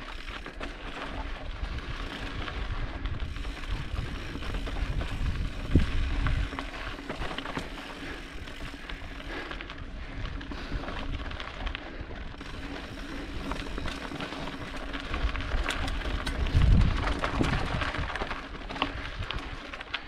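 Mountain bike rolling fast over a rocky, gravelly trail: tyres crunching and crackling on grit, with the bike rattling over the bumps. There are two heavier low thumps, about six seconds in and again about seventeen seconds in.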